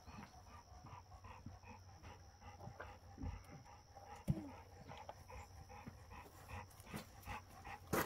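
A dog panting rapidly and evenly, with a few faint clicks and a small knock.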